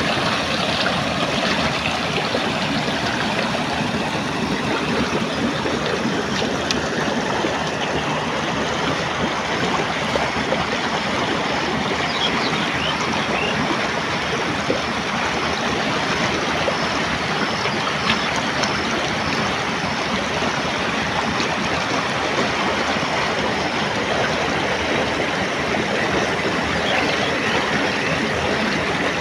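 Fresh rainy-season floodwater rushing steadily down a narrow earthen channel and pouring into a flooded field.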